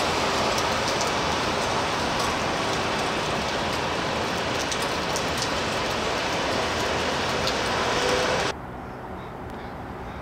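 Steady rain hiss with scattered close drops ticking. It cuts off suddenly about eight and a half seconds in to a much quieter low outdoor rumble.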